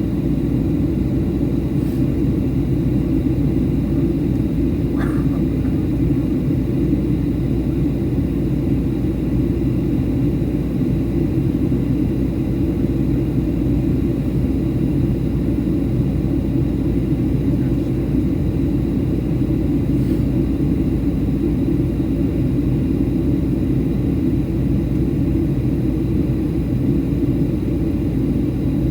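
Steady low rumble of a Boeing 737-800 airliner's cabin in flight during descent, with a few faint ticks.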